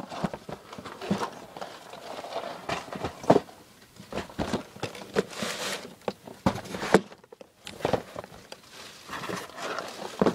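Cardboard Lego set boxes being handled and set down on a wooden table: irregular knocks and scrapes with rustling between them, the sharpest knock about three seconds in.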